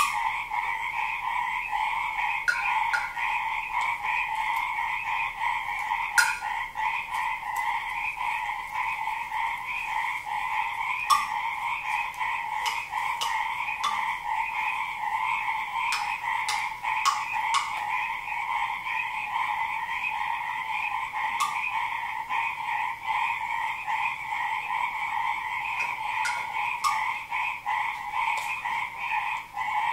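A dense chorus of frogs croaking and trilling without a break, with scattered light taps or clicks on top.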